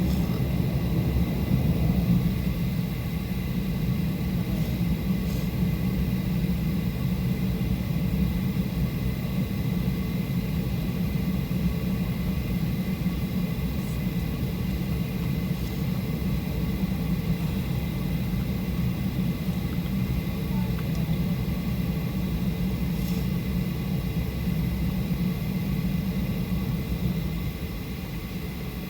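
Steady low rumble with faint fixed whining tones inside the cabin of a Boeing 737-800 on the ground after landing, easing slightly near the end.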